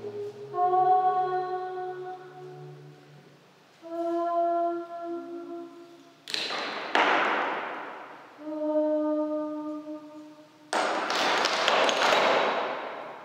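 Slow, held sung notes, broken three times by a sudden crash that dies away over a second or two: twice close together near the middle, and once more near the end.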